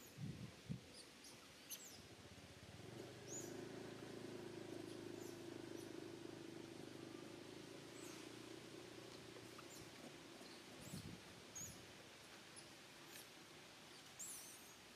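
Faint outdoor ambience with scattered short, high chirps or squeaks. A low steady hum sets in about three seconds in and fades out around ten seconds. There are a few soft low thumps.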